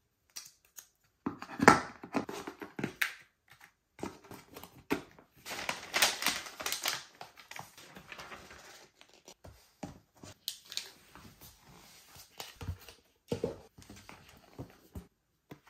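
Hands handling iPad packaging: clicks and knocks of the plastic power adapter and the cardboard tray, then a longer rustle as a paper sheet slides off the tablet in the middle. A few taps and knocks on the cardboard box come near the end.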